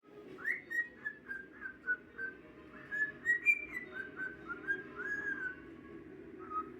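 Pet bird whistling a string of short, clear notes, some gliding up and some down, over a steady low hum; after a short gap, one more note near the end.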